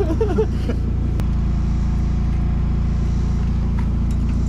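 Vehicle engine idling steadily, with a single sharp click about a second in.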